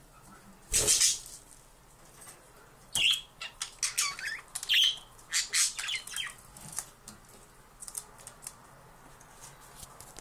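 Siberian chipmunk scrabbling in wood-shaving bedding: a scatter of short rustles and scratches, one loud one about a second in and a busy run between about three and six seconds.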